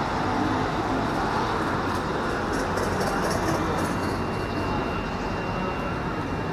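Steady rumbling outdoor background noise of a busy race-track pit area, with no single sound standing out.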